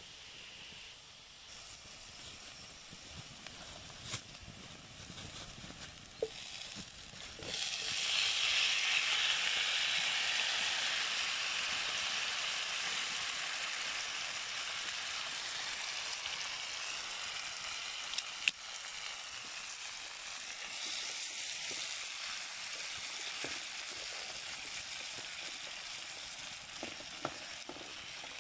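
A frying pan of onions and green peppers over a wood fire, with chopped tomatoes going in: about seven and a half seconds in, a loud sizzle starts suddenly and then slowly eases off. A few sharp clicks come before it, and near the end a wooden spoon knocks in the pan as the tomatoes are stirred.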